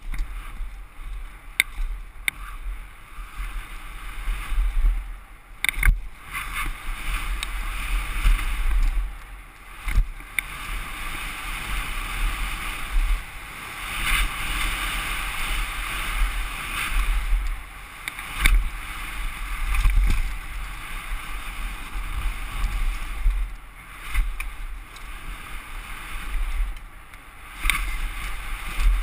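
Mountain bike descending a dirt trail at speed: wind buffeting the helmet camera's microphone over the rolling crunch of tyres on dirt and gravel. Scattered sharp knocks come as the bike hits bumps.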